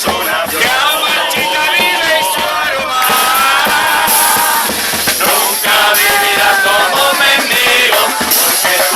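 A murga chorus singing a song together over its percussion; from about four seconds in, a bright cymbal-like hiss grows strong.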